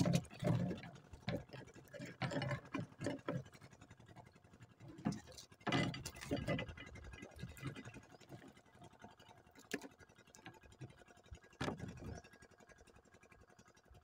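Hooped mesh fish trap being handled on a boat's wooden deck: irregular rattling and knocking of its metal hoops and netting, busiest in the first few seconds, then a few separate knocks, the last sharp one about twelve seconds in.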